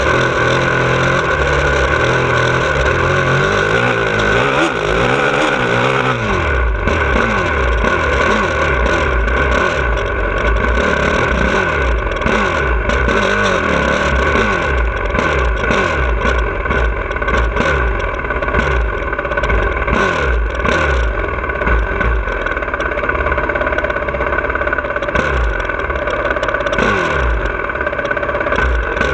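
2017 Honda CRF450R single-cylinder four-stroke motocross engine heard from a camera on the bike, revving up and down over and over as it is ridden round a dirt track. The low rumble gets heavier about six seconds in.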